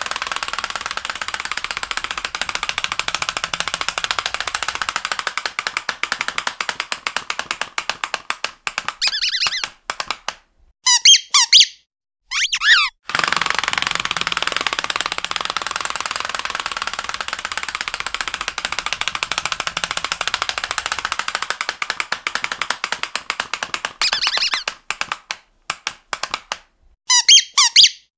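Squeaky dog toy squeezed over and over: long runs of rapid squeaking, broken twice (about a third of the way in and again near the end) by short separate squeaks whose pitch slides up and down, with brief gaps between them.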